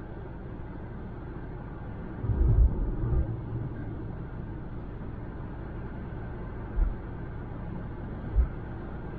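Car driving on a freeway: steady low rumble of road and tyre noise, with a cluster of loud low thumps about two and a half seconds in and two more single thumps later.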